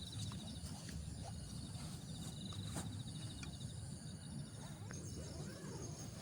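Insect trilling: a high, rapid pulsed trill, heard briefly near the start and again for about a second and a half from about two seconds in, over a steady low rumble with a few small clicks.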